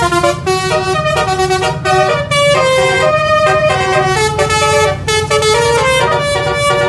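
Basuri telolet bus horn module playing a tune: a quick, unbroken run of stepped multi-tone horn notes, with a steady engine hum underneath.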